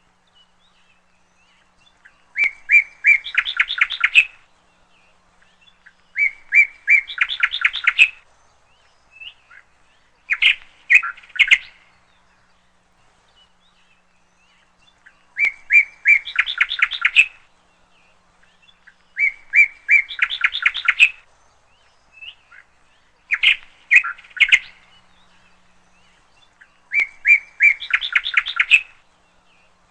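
A songbird singing the same short phrase over and over, about every four seconds: a few clear notes run into a fast trill.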